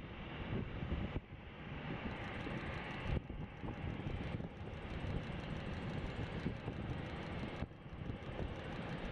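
Jet airliner engines at taxi idle: a steady rumble and hiss of airport apron noise, with wind buffeting the microphone.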